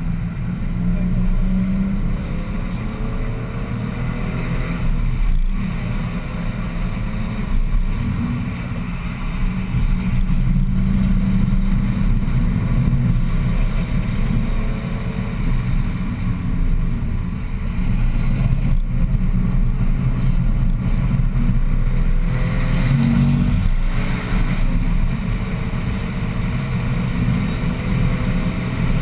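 BMW 1M's twin-turbocharged 3.0-litre inline-six heard from inside the cabin, running hard under load on track, its note rising with the revs and briefly dropping twice at what sound like gear changes.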